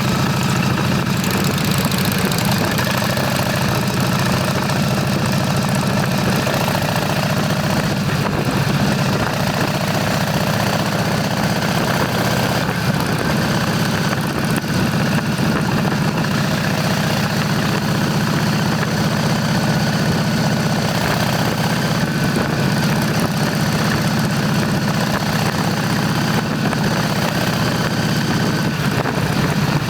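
Motorcycle engine running at a steady pitch, with a constant rushing noise over it.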